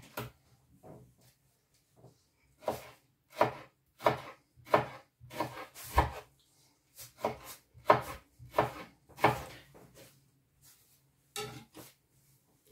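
Kitchen knife slicing and dicing a yellow tomato on a plastic cutting board: a run of irregular knocks as the blade meets the board, about one or two a second.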